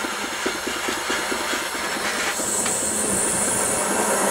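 Small gas torch flame hissing with a rapid flutter as it heats a borax-coated silver loop, fluxing it before silver soldering. About two seconds in a sharper, higher hiss joins.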